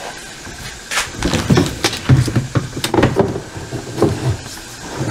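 Handling noise from about a second in: irregular clicks, knocks and rustles as a plastic bag of laundry and the lid of a top-loading washing machine are handled.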